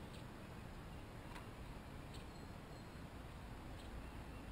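Chipmunks working at corn: four faint, sparse clicks over a low steady background rumble.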